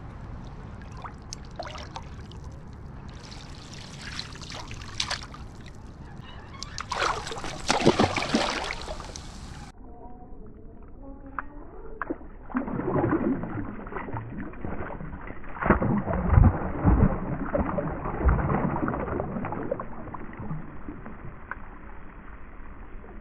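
Water splashing and sloshing as a hooked sea trout thrashes at the surface close by, over a steady low rumble of wind on the microphone. The splashes come in irregular surges, one about seven to nine seconds in and a longer run from about twelve to nineteen seconds in. The sound turns muffled about ten seconds in.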